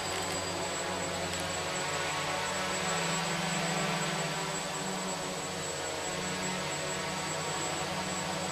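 Small FPV quadcopter's motors and propellers buzzing steadily in flight, the pitch shifting a little as the throttle changes.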